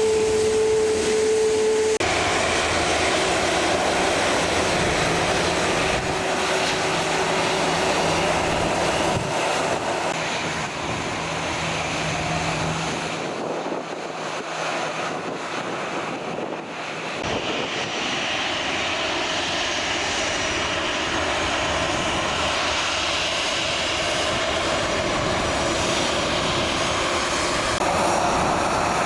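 Airbus A320's twin CFM56 turbofan engines running loud and steady as the airliner takes off, with the low rumble thinning out briefly around the middle.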